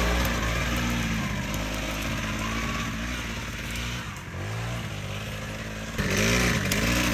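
Engine of a Rokon Mototractor two-wheel-drive motorcycle pulling under load as it crawls uphill in first gear, its pitch rising and falling with the throttle. It eases off about four seconds in and comes back louder about six seconds in.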